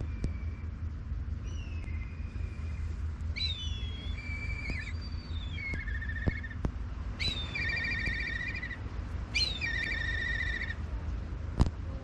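A songbird singing repeated phrases of clear whistles and fast trills, over a steady low rumble. A single sharp click near the end.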